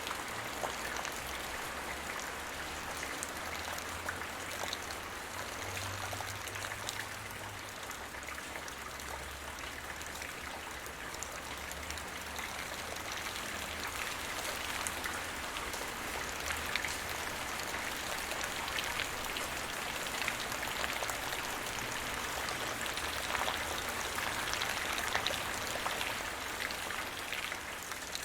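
Light rain shower falling on the ground: a steady patter of many small drops hitting the surface.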